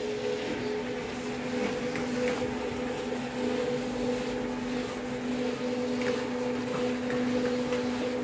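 Bakery conical dough rounder running: a steady motor hum with two held tones, one low and one higher, and a few faint knocks.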